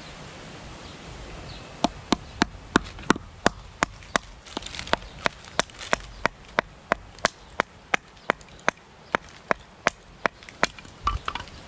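A knife blade striking wood in sharp, evenly spaced knocks, about three a second, starting about two seconds in and going on until near the end.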